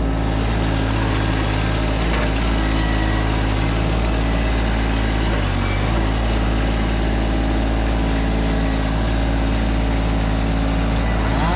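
An engine idling steadily at an even pitch, with no revving.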